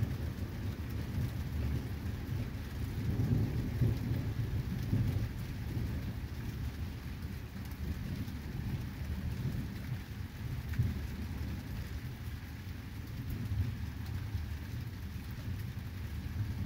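Thunder rumbling low and long, swelling and fading several times, over the steady patter of rain.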